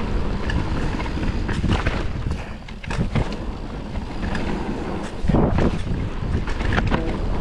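Wind rushing over a chest-mounted action camera's microphone while a Forbidden Dreadnought full-suspension mountain bike rolls fast down a dirt trail. Under it are tyre rumble and repeated clicks and knocks from the bike over bumps, growing louder about five seconds in.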